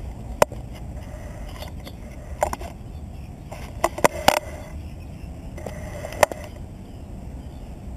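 Sound picked up by a handlebar-mounted camera on a road bike moving slowly: a steady low rumble with irregular sharp clicks and knocks from the bike and its mount, a quick cluster of them about four seconds in.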